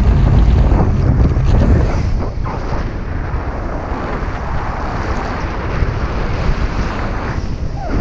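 Wind noise from the air rushing past the microphone in paraglider flight: a dense, low, buffeting rush, loudest for about the first two seconds and then a little steadier.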